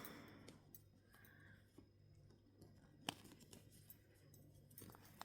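Near silence, with a few faint light clicks as a small doll and its accessories are handled and fitted, the clearest about three seconds in.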